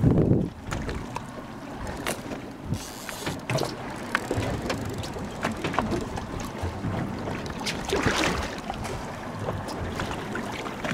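Wind buffeting the microphone over water lapping and slapping against a boat's hull on a choppy sea, with scattered small knocks and clicks. A strong gust comes right at the start, and a louder rush of wind and water about eight seconds in.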